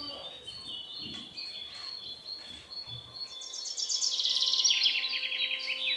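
Birds chirping with repeated short high notes. About halfway through comes a louder, rapid trill that falls in pitch.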